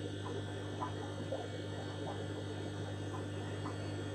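Steady low electrical hum of running aquarium equipment in a fish room, with a few faint, scattered small sounds over it.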